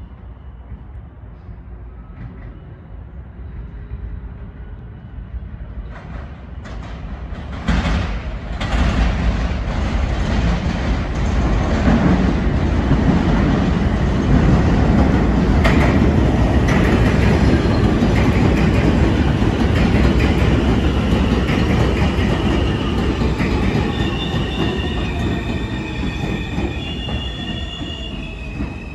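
R160 subway train approaching along the elevated tracks and pulling into the station: a rumble that builds over several seconds, sharp clacks of wheels over rail joints, then high-pitched wheel squeal as it slows near the end.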